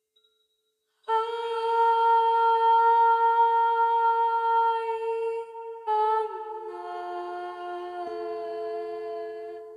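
A voice humming long, wordless held notes after a second of silence. One steady note lasts about five seconds, then the pitch changes and two notes sound together.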